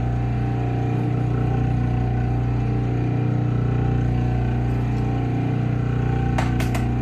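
Clipper-blade sharpening machine running with a steady motor hum from the spinning charged plate. A few sharp clicks come near the end.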